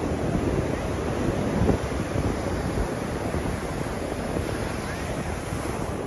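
Ocean surf washing steadily onto a sandy beach, with wind buffeting the microphone.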